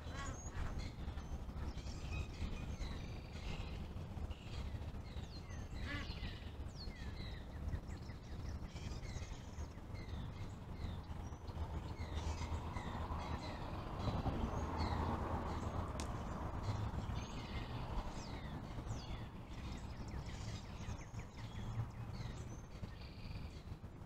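Many short bird calls and chirps over a steady low rumble of road traffic, with one vehicle swelling louder and passing in the middle.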